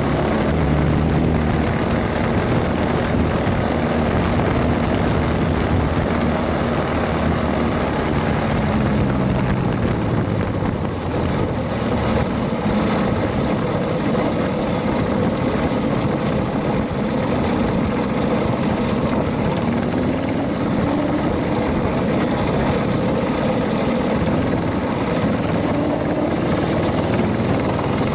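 Mini bike's small gasoline engine running as the bike is ridden, its pitch rising and falling with the throttle over a steady rush of noise.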